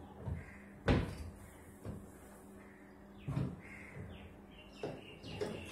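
Engineered-wood headboard panel being handled against the wooden bed frame: a series of knocks and thumps, the sharpest about a second in.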